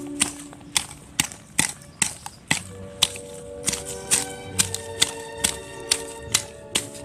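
A small hand weeding hoe (kored) chopping into soil and weed roots in sharp strikes, about two to three a second, over background music with held notes.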